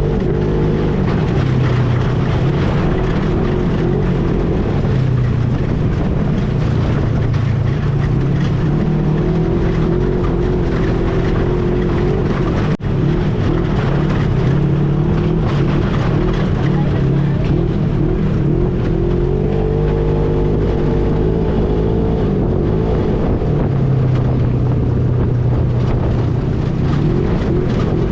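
ATV engine running steadily while riding off-road, its pitch drifting up and down with the throttle over a noisy rumble of wind and terrain. The sound cuts out for a moment about 13 seconds in.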